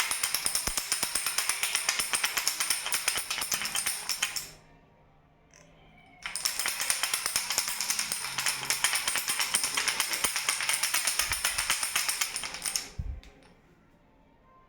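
A baby rattle being shaken fast, giving a dense stream of small rattling clicks. It stops for about two seconds after the first few seconds, starts again for about six seconds, and then stops near the end.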